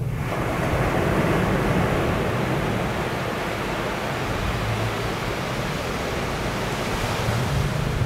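Surf washing in as a steady rush that rises sharply at the start, with the crew boat's engines humming low and steady underneath.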